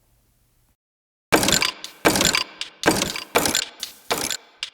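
A looped beat played back from sampled kitchen sounds, with low, pitched ice sounds among them: sharp cracks and clatters in a steady rhythm, starting about a second in.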